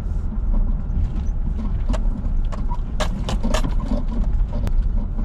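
A car's low rumble heard inside the cabin while driving on a dirt campground road, with scattered sharp knocks and rattles, most of them in the second half.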